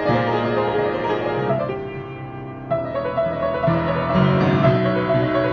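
Piano playing a tune in changing notes and chords, softer for a moment about two seconds in, then a new chord struck.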